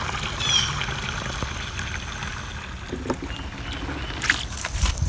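Garden hose turned up high, water gushing steadily into a plastic pump sprayer jug as the tank fills and the cleaning solution mixes. A few light knocks near the end.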